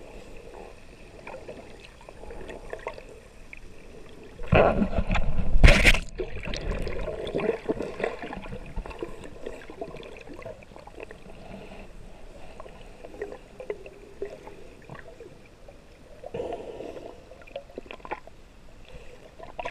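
Muffled water sloshing and gurgling heard from a camera held underwater, with one loud rush of water noise about four and a half seconds in that lasts a second and a half and stops abruptly.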